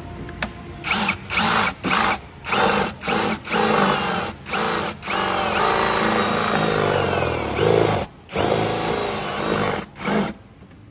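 Power drill boring a hole in wood with a door-knob hole-boring bit for a drawer lock. It runs in short on-off bursts at first, then is held on with its speed rising and falling, pauses briefly about eight seconds in, and stops near the end.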